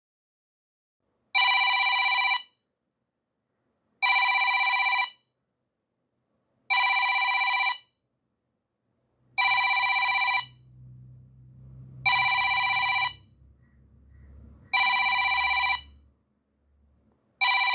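Digital timer alarm going off: a ringing electronic tone made of several steady pitches, sounding about a second at a time and repeating seven times at an even pace of roughly one ring every two and a half to three seconds.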